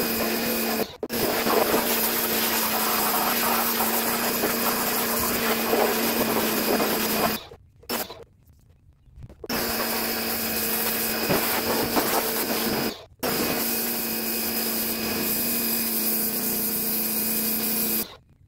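Electric pressure washer running: a steady motor-and-pump hum under the hiss of the water jet spraying plastic truck door panels. It cuts off sharply and restarts three times, once for about two seconds, and stops just before the end.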